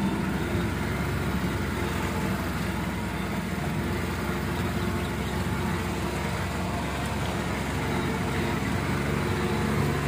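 A motor vehicle's engine running steadily with a low hum, heard from aboard the vehicle, under a steady haze of road and wind noise.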